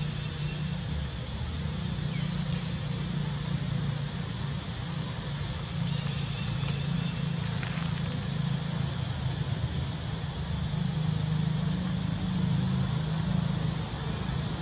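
A steady low rumble throughout, with a few faint high chirps now and then.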